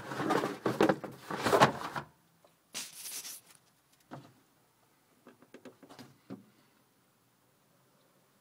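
Handling noise of a phone being moved around a car's interior: rustling and scraping for about two seconds, a short hiss, then a few light clicks and knocks.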